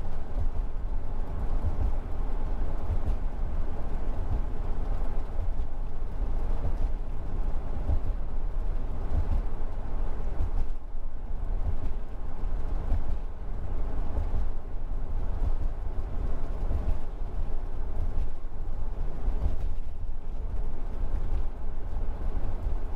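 Steady road noise inside a camper van's cab cruising at about 44 mph: a constant deep rumble of tyres and engine with a duller hiss above it.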